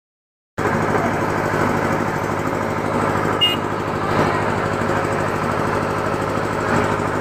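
An engine running steadily, an even low drone that cuts in from silence about half a second in.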